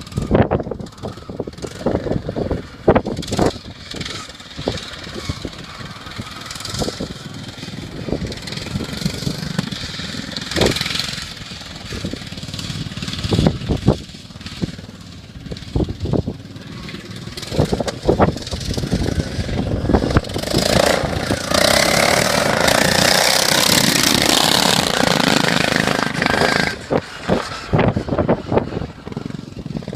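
Racing lawn mower engines running, loudest for several seconds in the second half, with wind buffeting the microphone throughout.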